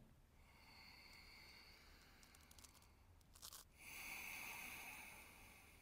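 Faint ujjayi breathing: a soft, throaty hiss that swells into a longer breath about four seconds in, just after a few faint clicks.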